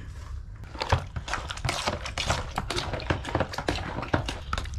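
A quick, irregular run of small taps and clicks of utensils against dishes, as food is mixed and served.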